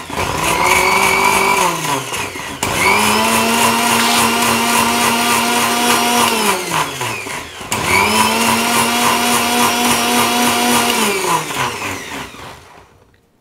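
Electric mixer-grinder (mixie) whipping tender coconut pulp with coconut water in its steel jar, in short runs. Already running, its motor winds down about two seconds in, then it is started twice more for about five seconds each, the whine holding steady and then falling as the motor coasts to a stop, fading out near the end.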